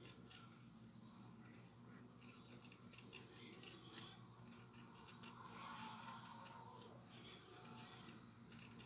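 Small scissors snipping through fabric, faint repeated snips as the shape is trimmed, over a steady low hum.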